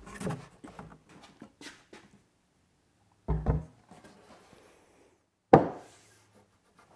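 Solid-wood slab waterfall table being turned over and set down on a workbench: light knocks of the wood, a dull thump about three and a half seconds in, and a sharp loud knock about five and a half seconds in as the legs land on the bench, followed by faint taps as the top is pressed to test for wobble after the legs were trimmed.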